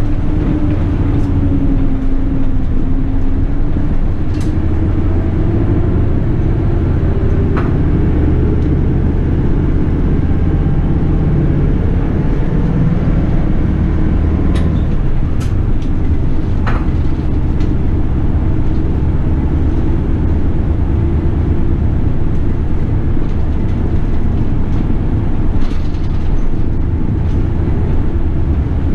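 City bus running along in traffic: a steady low engine and road rumble whose engine note rises and falls, with a few short rattles and clicks.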